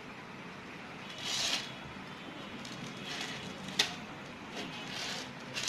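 Clear beading line drawn through crystal beads in a few short swishes, with a couple of small sharp clicks of beads knocking together.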